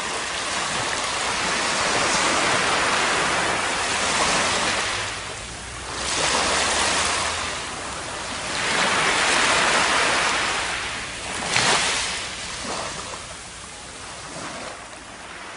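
Shallow surf washing up a sandy beach, a rushing hiss that swells and fades with each wave. One short, sharper rush comes about three-quarters of the way through.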